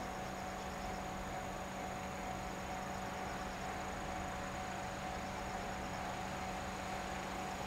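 A steady hum with several fixed tones over a low background noise, and insects chirping in short runs of rapid pulses every second or two.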